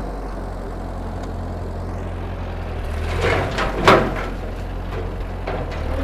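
Ford 8N tractor's four-cylinder flathead engine running at a steady low speed as it reverses the rotary cutter into brush. About three seconds in, a short burst of crackling ends in one loud sharp crack, with a few lighter cracks after it.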